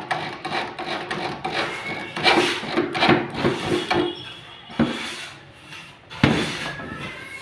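Cordless drill driving screws through the steel bracket of a hydraulic bed lift mechanism into the board, in short bursts of spinning up. A sharp knock near the end as the metal lift arm is moved by hand.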